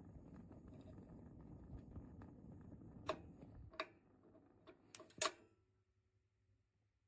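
A low rumbling noise that cuts off abruptly, with five sharp clicks over about two seconds near the middle, the last the loudest.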